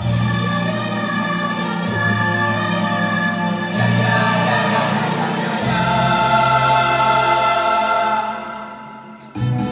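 A choir singing sustained chords, the low notes changing about every two seconds. The sound fades near the end, then a new phrase comes in just before the end.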